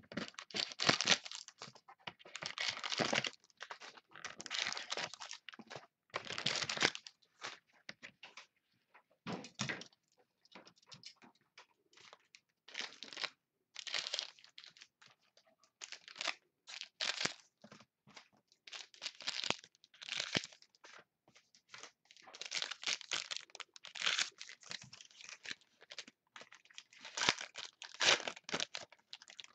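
Wrapping and plastic crinkling and tearing in irregular bursts as football trading card packs are opened and the cards handled.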